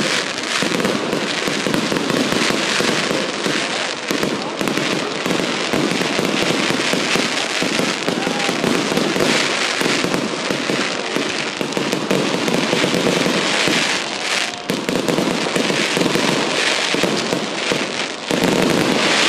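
Fireworks going off in a continuous, dense barrage of rapid bangs and crackling, growing louder near the end.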